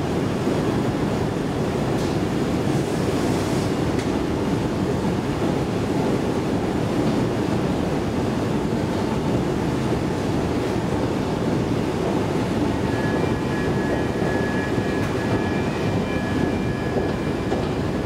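Steady rumble on a moving escalator in a rock-cavern metro station. A thin high whine joins in about thirteen seconds in and fades just before the end.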